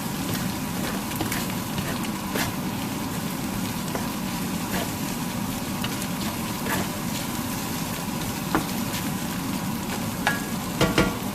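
Ground beef sizzling as it browns and caramelizes in a pan: a steady frying hiss with scattered pops, and a few sharp clicks about ten seconds in.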